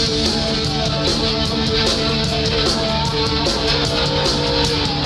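Rock band playing an instrumental passage between sung lines: electric guitar notes changing in steps over drums, with steady cymbal strikes.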